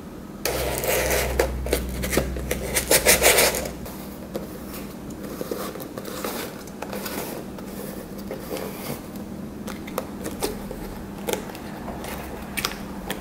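Handling noise from a homemade cardboard shoebox vending machine: cardboard and paper rustling and scraping, with small clicks. A louder stretch of rustling and clicks comes about half a second in and lasts a few seconds. Quieter scrapes and clicks follow as the paper tab is pulled and pushed and the knob is turned.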